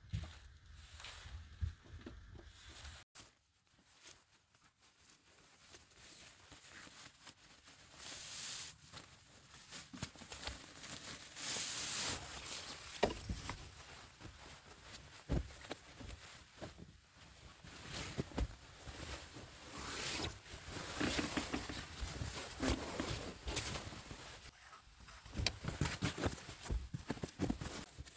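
Bedding being handled on a quilted tent mattress: fabric rustling and swishing in irregular bursts as a blanket is rolled up, then a blanket and a ridged foam sleeping pad are smoothed out.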